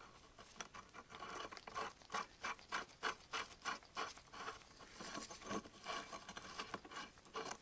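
Faint, irregular small metallic clicks and scraping as a nut and a stack of washers are handled and threaded by hand onto a ball joint stud in an ATV's steering knuckle, setting up a makeshift puller to draw the ball joint out.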